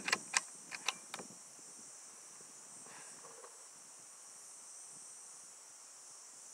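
Five or six sharp metallic clicks in the first second or so as the Hatsan Flash Pup .22 PCP air rifle is cocked and reloaded. After that there is only a steady high drone of crickets.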